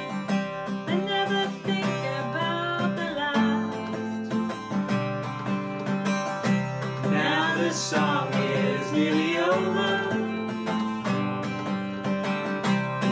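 Acoustic guitar playing the chords of a slow ballad in an instrumental break. A wavering, pitch-bending melody line comes in over it twice.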